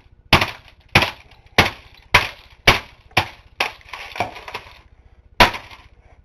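Brick hammer striking a laptop's plastic case and keyboard, seven quick blows about two a second with rattling of broken pieces and loosened keys, then a pause and one more blow near the end.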